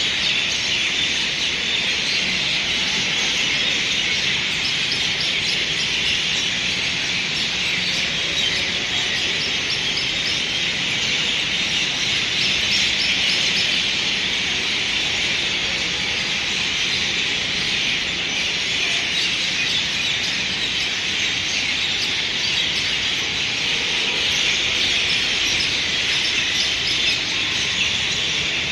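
A large number of birds chirping all at once in a dense, continuous chorus, with no single call standing out.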